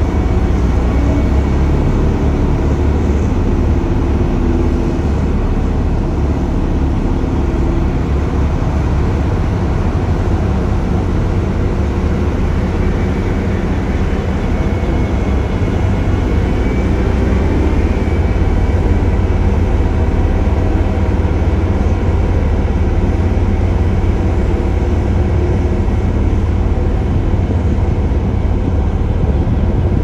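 Diesel engines of several LiuGong single-drum road rollers running together, a steady deep rumble.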